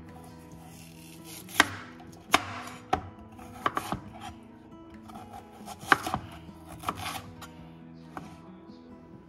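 Kitchen knife chopping vegetables on a cutting board: about ten irregular, sharp chops, with background music underneath.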